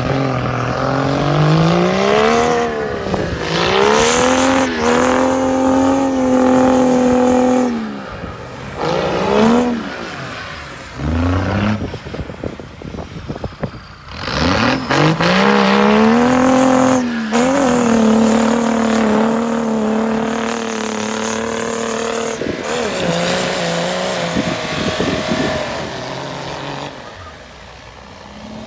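Land Rover Defender's swapped Mercedes OM606 straight-six turbodiesel pulling hard through deep snow, revved up and held at high revs in two long pulls with short blips between, then easing off as it moves away. A high whistle rises and falls above the engine during the pulls.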